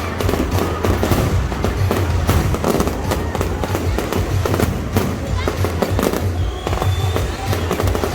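Fireworks going off in rapid, continuous cracks and bangs, mixed with background music with a deep bass and people's voices.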